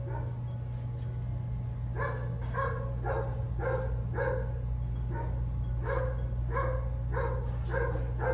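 A dog barking repeatedly, about two short barks a second, pausing briefly about halfway through. A steady low hum runs underneath.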